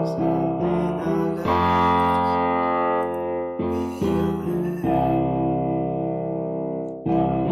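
A simple keyboard chord progression, raw and unmixed: held chords that change every second or two, several times in a row.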